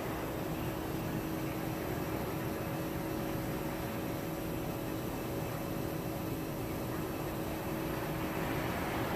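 Steady mechanical hum, two constant tones over an even hiss, with no change in level.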